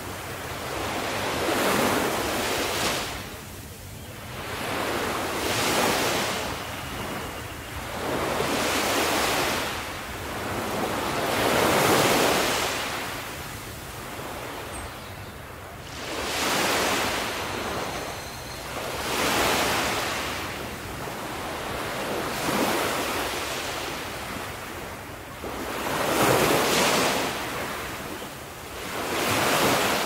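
Sea waves washing onto the shore, one after another every few seconds, each a swelling rush of surf that falls away before the next.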